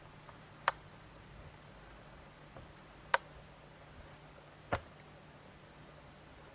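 Three short, sharp clicks, well apart, over a faint steady low hum.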